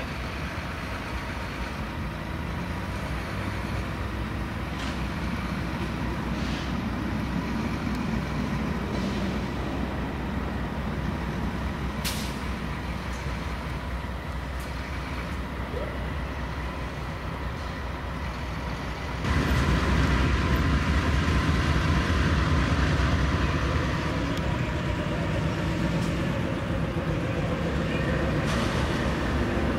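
Steady low rumble of a train on the move, with a thin steady high tone and a few sharp clicks; it gets suddenly louder about two-thirds of the way through.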